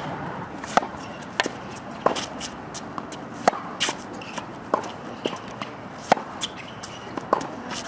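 Tennis balls struck by racquets and bouncing on a hard court during a rally: sharp pops about every second, with shuffling footsteps between.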